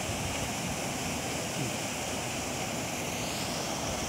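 Steady rush of river water flowing at a weir, an even, unbroken wash of noise. A faint rising tone sounds high up about three seconds in.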